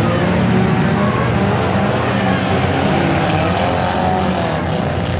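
Several demolition derby cars' engines running and revving together in a loud, unbroken din. One engine's pitch rises and falls around the middle.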